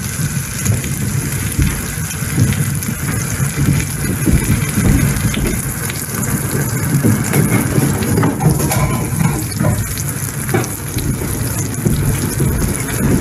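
Floured pork chops frying in foaming butter and rapeseed oil in a non-stick pan: a steady sizzle with many small crackles of spattering fat, the chops searing to take on colour.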